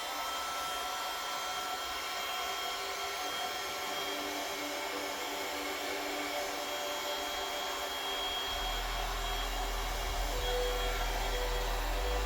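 An electric hot-air blower motor running steadily with a whine, just after spinning up to speed; a low rumble joins about two-thirds of the way through.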